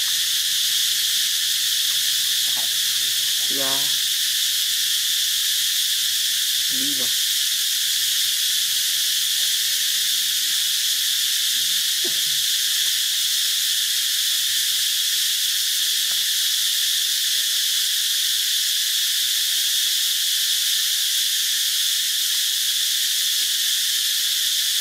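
Steady, high-pitched drone of insects, unbroken throughout. A few faint, short calls fall in pitch now and then.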